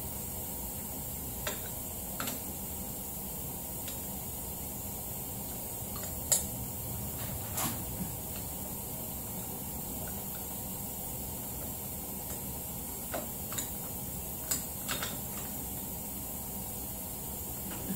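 Scattered light metal clicks and clinks as an ATV's rear brake caliper is handled and fitted over the brake disc on the rear axle hub, the sharpest about six seconds in and several more close together near the end, over a steady background hiss.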